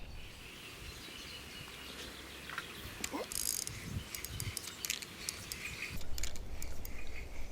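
Outdoor lakeside ambience: a steady low rumble with faint bird and insect sounds, and a few light clicks and a short hiss in the middle.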